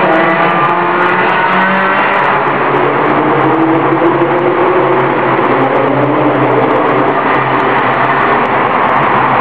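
Ferrari 360 Modena's V8 engine heard from inside the cabin, its note rising as it accelerates over the first couple of seconds, holding steady, then rising again near the end.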